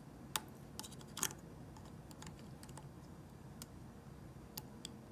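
A few light, separate clicks and taps of the trimmer head's plastic and metal parts being handled, most of them in the first second and a couple near the end, over a faint steady background.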